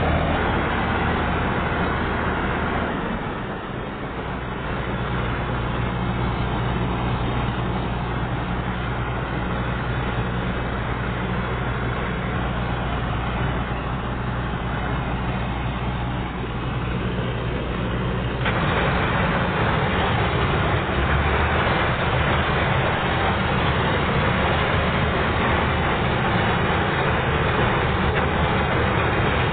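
Chardikala combine harvester's engine running steadily, its sound shifting abruptly twice, about three seconds in and again about two-thirds of the way through.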